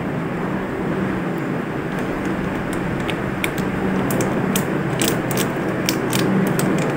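Steady mechanical hum running throughout, with scattered sharp crinkles and clicks of a plastic sauce packet being squeezed over a cup of noodles, more frequent in the second half.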